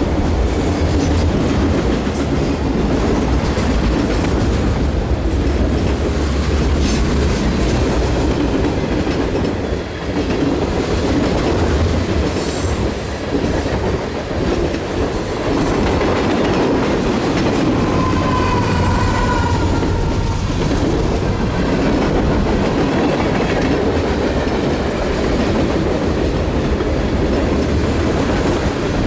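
Norfolk Southern mixed freight train's cars rolling past with a steady loud rumble and wheels clicking over the rail joints. A brief high squeal about two-thirds of the way through.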